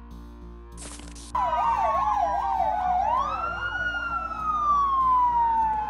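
Police vehicle siren. It starts about a second and a half in with a fast warble of roughly three wobbles a second, then switches to a slow wail that rises and then falls over several seconds. Before it, faint background music and a brief burst of noise.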